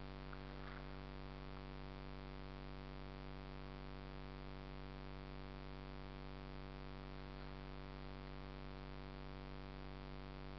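A steady, unchanging electrical hum with a buzzy stack of overtones, with a few faint clicks about half a second in.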